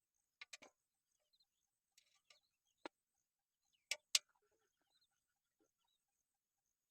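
A few sharp clicks and knocks at irregular intervals against near silence, the two loudest close together about four seconds in.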